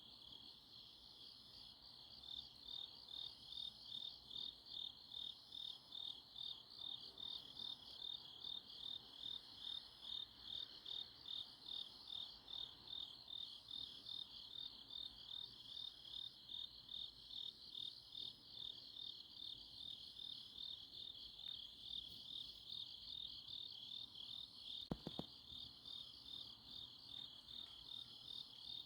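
Autumn grass insects chirping in a dense chorus, a high pulsing trill at about two pulses a second with a fainter, slower high call above it. A brief click about three quarters of the way through.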